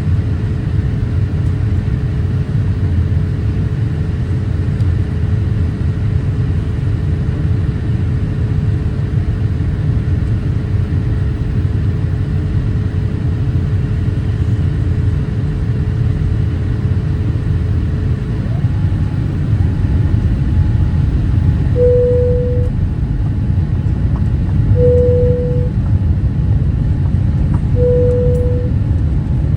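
Steady low rumble of a Boeing 787-8 airliner cabin in flight. A faint steady hum drops away about two-thirds of the way through, and three short beeps follow, about three seconds apart.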